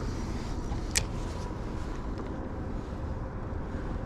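Steady wind rumble buffeting the action camera's microphone, with one sharp click about a second in.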